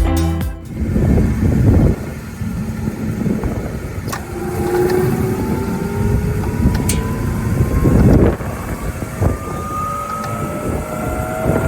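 Vecoplan 35/8/2 wood shredder running, its two-knife rotor crunching wood in an irregular grinding clatter with louder surges and occasional sharp cracks. A thin motor whine slowly rises in pitch underneath.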